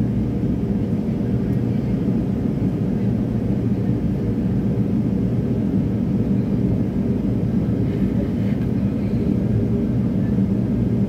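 Steady low drone inside the cabin of an MD-80 airliner climbing after takeoff, from its two rear-mounted Pratt & Whitney JT8D turbofans at climb power, with a few faint steady tones in the hum.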